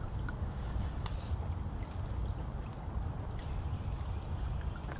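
Wind buffeting the microphone as a steady low rumble, with an even hiss and a thin, steady high-pitched tone running underneath.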